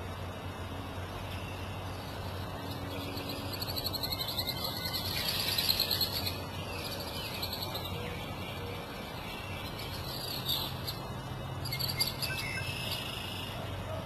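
Birds chirping and singing, loudest about five seconds in and again near the end, over a steady low hum.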